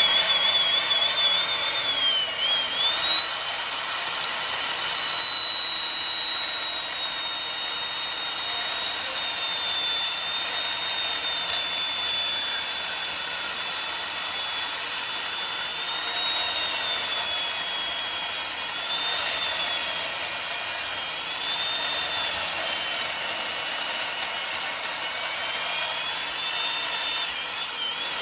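Electric chainsaw running under load as it cuts into the end grain of a solid wooden table pedestal. A high motor whine that sags in pitch and recovers several times as the chain bites into the wood.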